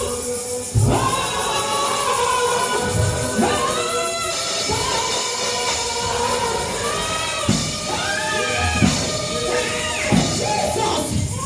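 Gospel worship music: voices singing together in a held, sliding melody over instruments, with a tambourine.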